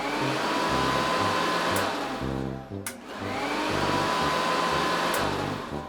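Vacuum cleaner sound effect: the motor runs with a rushing noise and a whine that rises briefly, then holds. It does this in two long stretches with a short dip between them.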